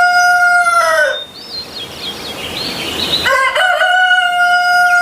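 Rooster crowing, twice: each crow ends on a long held note that drops away, the first about a second in and the second starting just past three seconds, with a rough noisy stretch between. It is a sound effect for the toy rooster just revealed.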